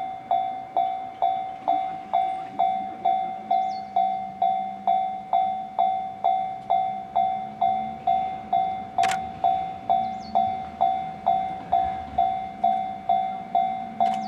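Railway level-crossing warning bell ringing, an evenly repeated single-pitched ding about twice a second, each stroke dying away quickly. A low hum from the approaching electric freight locomotive comes in under it after a couple of seconds, and there is one sharp click about nine seconds in.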